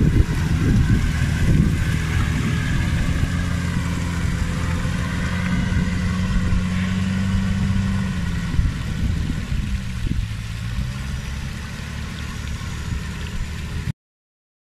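Nissan Patrol 4x4 engine running at low revs as it crawls up a rocky, muddy track. The note holds steady, rises slightly, then eases off after about eight seconds, and the sound cuts off suddenly near the end.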